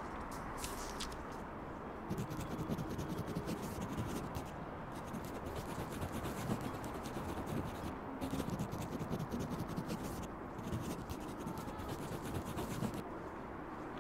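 A marker scratching across lined notebook paper, writing words in quick strokes in several short runs with brief pauses. The writing stops about a second before the end.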